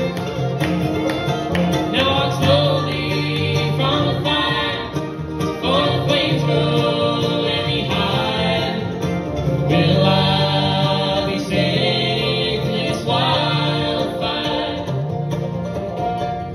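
Bluegrass band playing live: banjo, mandolin, acoustic guitar, upright bass and fiddle behind a woman singing the lead vocal.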